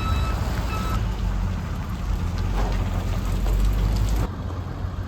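A heavy work vehicle's engine running with a steady hiss over it, a reverse alarm beeping during the first second. The engine sound drops away suddenly about four seconds in.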